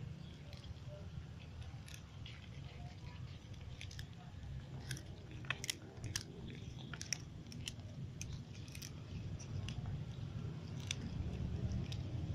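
Several cats chewing and crunching stick-shaped crackers, with irregular crisp crunches over a low steady hum.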